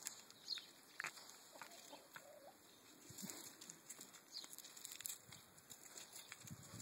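Faint, quiet handling sounds: scattered small clicks and rustles as a puppy nibbles and mouths a hand and its fur rubs against the phone, with a few brief high chirps.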